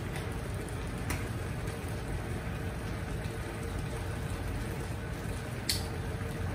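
Fish paksiw in vinegar broth simmering in a pot on a gas burner: a steady bubbling hiss over the low rush of the flame. A light click about a second in and a sharper one near the end.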